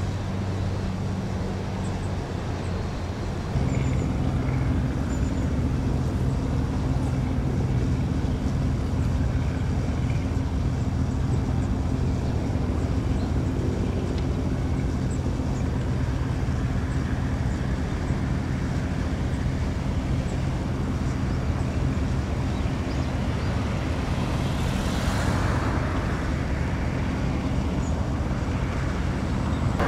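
A steady low engine hum made of a few even tones, which jumps louder about three and a half seconds in and then holds. A rushing hiss swells and fades near the end.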